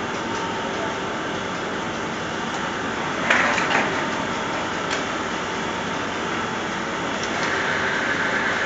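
Bedding-production-line machinery running steadily, its rollers and slatted conveyor carrying a sheet of batting. A brief louder noise comes about three seconds in, with a few faint clicks.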